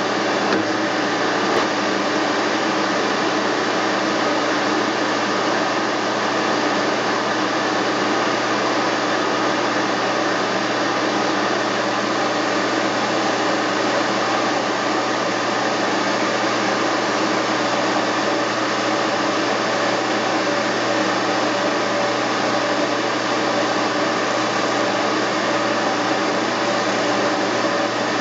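Steady whir of a motor or fan running in a machine shop, with a low hum that keeps the same level throughout.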